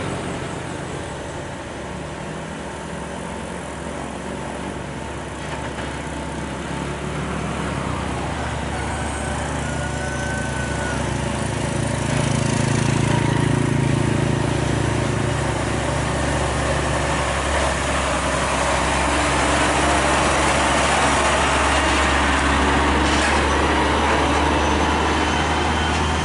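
Diesel engine of a UD Trucks Quester tractor unit running steadily under load as it hauls an excavator on a lowbed trailer. It grows louder about halfway through as the truck comes close, with tyre and road noise.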